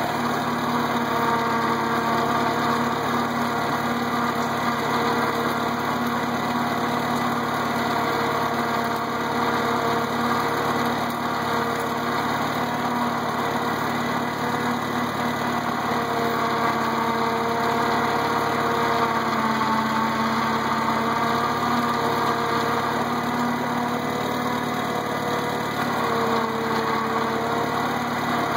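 International Cub tractor's small four-cylinder engine running steadily under light load in first gear, pulling mid-mounted cultivators slowly through the soil.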